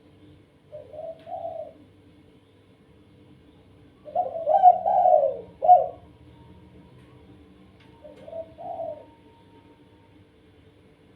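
A dove cooing in three phrases: a two-note coo about a second in, a louder run of several coos from about four to six seconds, and another two-note coo near nine seconds. A faint steady hum runs underneath.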